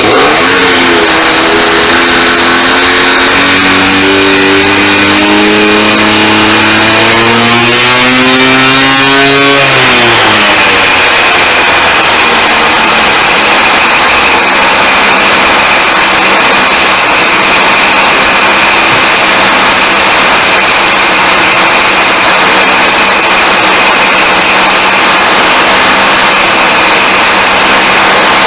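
Honda Dio AF18 scooter's 50 cc two-stroke engine running loud, freshly rebuilt with a new cylinder and reed valve. Its note climbs steadily for about ten seconds as it is revved, drops back, then holds at a steady, fairly fast run.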